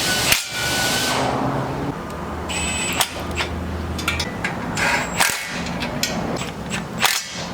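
A short burst of a power tool in the first second, then scattered clanks, clicks and knocks of metal tools and parts being handled, with a brief high ring about three seconds in.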